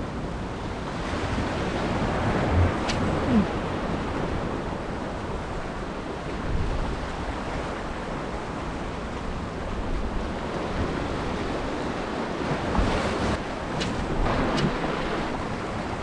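Sea surging and washing over rocks at the water's edge, with wind buffeting the microphone.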